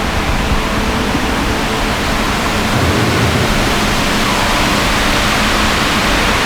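Steady, loud rushing noise with no distinct events in it.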